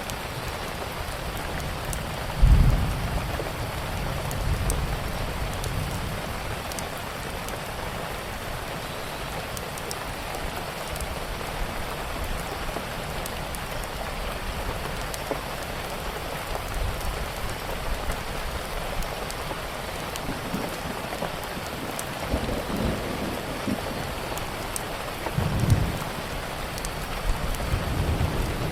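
Steady rain with rumbles of thunder: a sharp, loud thunderclap about two and a half seconds in that dies away, and further rumbles near the end. Faint scattered crackles of a wood fire run through the rain.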